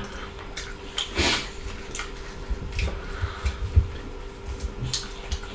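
Close-miked eating sounds: chewing and lip smacks from people eating fried pork ribs with their hands, a string of small wet clicks with a louder smack about a second in.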